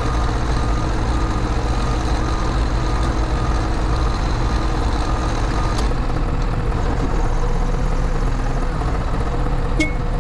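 New Holland backhoe loader's diesel engine running steadily, heard from inside the cab. Its reversing alarm beeps repeatedly through the first half as the machine backs up, and there is a sharp click near the end.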